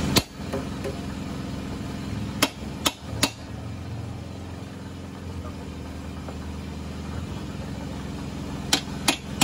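Hammer blows on a steel rod driven against a Kawasaki KLX's swingarm pivot shaft, which is seized in the swingarm and will not come out. There is one blow near the start, three in quick succession about two and a half seconds in, and two more near the end, over a steady low hum.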